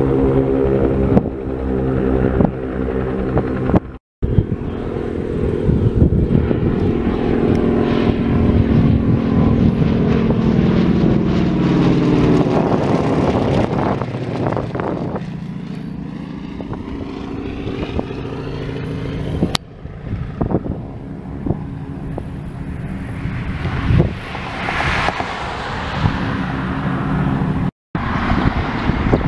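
North American T-6 Texans' Pratt & Whitney R-1340 Wasp radial engines droning as the planes fly by. The engine pitch drops as one passes overhead, about twelve to fifteen seconds in.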